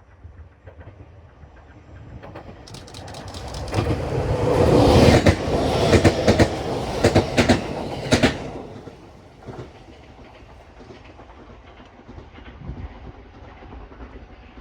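E491 series electric track-inspection train passing: its rumble builds, then wheels clatter loudly over the rail joints in rapid clicks for about four seconds before the sound falls away to a fading rumble.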